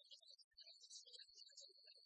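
Near silence, with faint, garbled traces of background music and a couple of soft low thumps.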